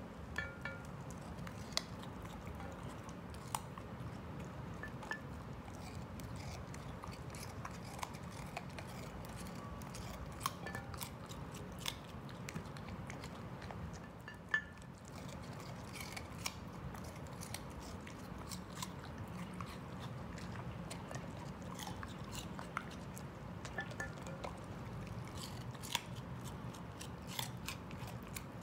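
A dachshund biting and chewing raw baby carrots: crisp, irregular crunches scattered throughout, one louder crunch about halfway through.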